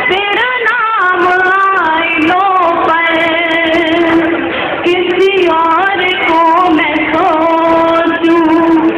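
Woman singing a ghazal couplet solo, holding long notes with ornamented bends and turns.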